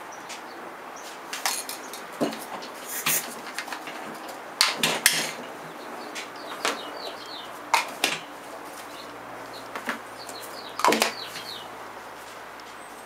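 Scattered clicks and knocks of aerosol spray cans and a plastic Can Gun trigger-grip adapter being handled on a wooden workbench as the adapter is unclipped from a can, the loudest knocks about five seconds in and near eleven seconds. Faint bird chirps in the background.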